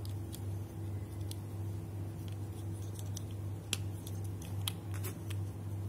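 Hard plastic action-figure parts clicking as an arm is handled and fitted onto the toy, with a few sharp clicks in the second half, over a steady low hum.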